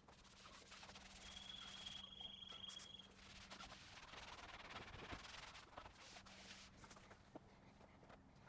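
Near silence: faint background noise with a low steady hum and a brief thin high tone about a second in.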